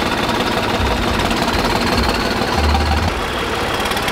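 New Holland tractor's diesel engine running steadily as the tractor moves off at low speed.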